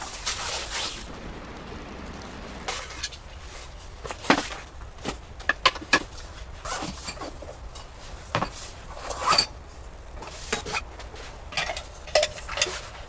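Irregular taps, clinks and scrapes of small objects being handled, a dozen or so sharp knocks spread unevenly through the stretch, over a faint steady hiss.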